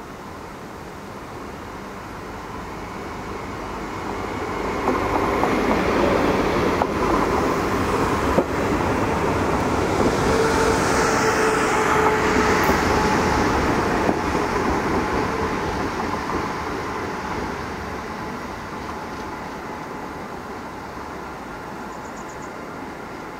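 SJ X40 double-deck electric multiple unit passing at speed. The rumble of its wheels on the rails swells as it comes by and fades as it heads off into the tunnel, with a steady whine under it and two sharp clacks near the middle of the pass.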